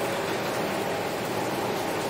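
Heavy rain falling on a window glass, a steady, dense patter with no break.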